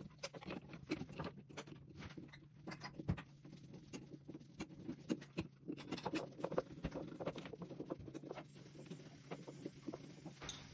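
Many small irregular clicks, taps and scraping of plastic and metal parts being handled inside an old rewirable fuse box, as the fuse-carrier brackets are swapped for replacement brackets to take miniature circuit breakers.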